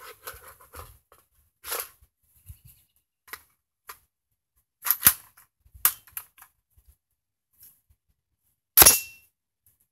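An AR-15 in .223 Wylde being handled: metallic clicks as it is loaded and worked, with two sharp clacks about five and six seconds in, then one loud rifle shot near the end. The shot is a single-round test of a rifle that keeps failing to lock its bolt back on an empty magazine, a short-stroking problem.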